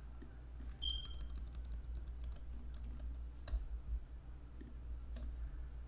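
Computer keyboard typing: irregular keystrokes and clicks, a few sharper than the rest, over a steady low hum. A short high-pitched tone sounds about a second in.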